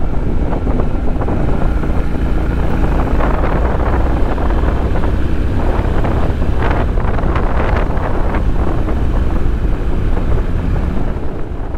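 Wind buffeting the microphone on a moving Honda NC750X motorcycle, with its parallel-twin engine running steadily underneath at cruising speed.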